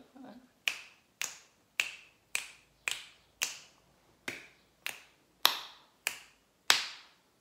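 Fingers snapping in a steady rhythm, about two snaps a second, a dozen in all.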